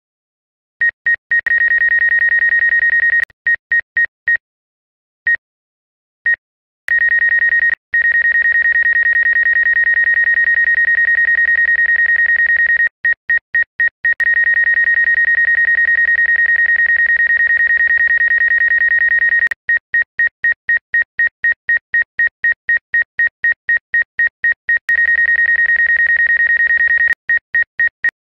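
Drone app's high electronic warning beep, from a Mavic Air 2 flying close among tree branches: rapid repeated beeps that merge into an unbroken tone for several seconds at a time, then break back into fast beeping. This is typical of the obstacle-proximity warning, which beeps faster as the drone nears an obstacle and goes continuous when it is very close.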